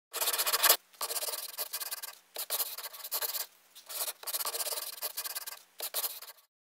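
Pencil scratching across paper while tracing outlines, in five runs of strokes with short pauses between, stopping suddenly near the end.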